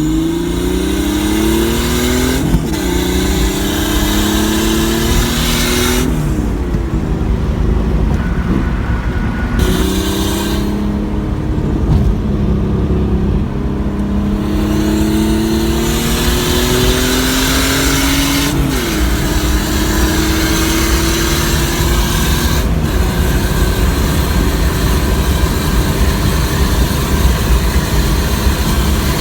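Chevrolet Cavalier four-cylinder engine pulling hard under acceleration, revving up through the gears and dropping in pitch at each of several upshifts, over road noise.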